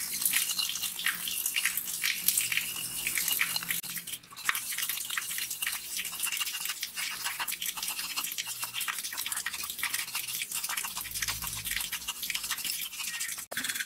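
Small brush scrubbing a rusty metal heater plate in a tub of foamy cleaning solution, with rapid wet scratching strokes.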